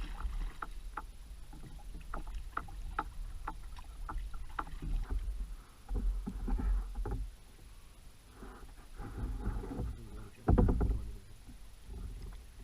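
Kayak being paddled: irregular water drips and splashes from the paddle with sharp ticking, and a louder short low burst about ten and a half seconds in.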